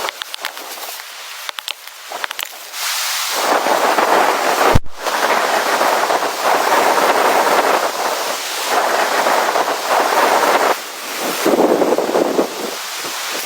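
Blizzard wind blowing in strong gusts and buffeting the microphone. A few light ticks come in the first couple of seconds, and there is a brief break with a low thump about five seconds in.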